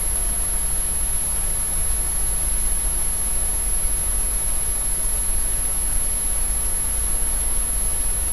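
Steady recording background noise: an even hiss over a low hum or rumble, with a thin high-pitched whine throughout and no voice.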